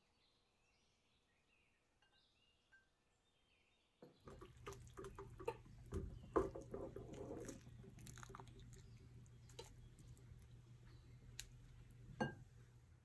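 Near silence for about four seconds, then broccoli in a pot of boiling water: bubbling and splashing, with irregular clicks as a spatula stirs through it, over a low steady hum.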